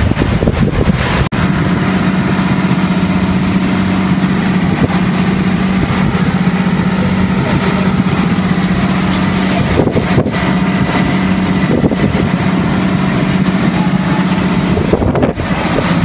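Heavy truck engine running at a steady idle, a constant low drone that begins about a second in, with wind buffeting the microphone.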